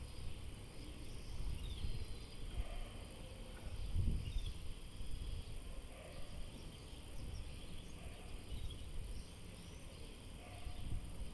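Outdoor ambience: wind gusting on the microphone as an uneven low rumble, strongest about four seconds in. Over it run a steady high-pitched insect hiss and a few faint, short bird chirps.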